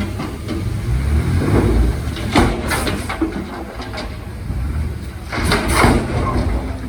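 Heavy diesel earthmoving machinery running with a low, steady rumble, broken by sharp metallic clanks about two and a half seconds in and again near six seconds.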